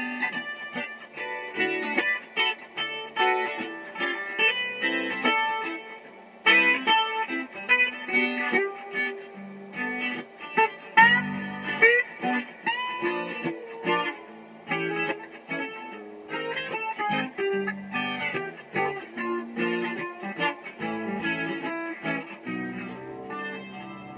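Guitar played solo, a continuous run of picked single notes and chords. A few notes are bent or slid upward about eleven seconds in.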